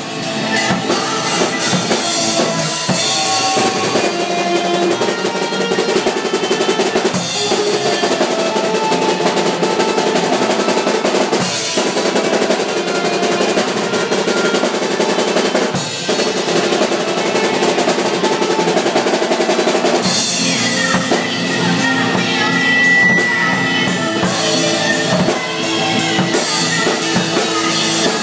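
Garage rock band playing live, with a Pearl drum kit loud over the guitar and a woman singing into a handheld microphone.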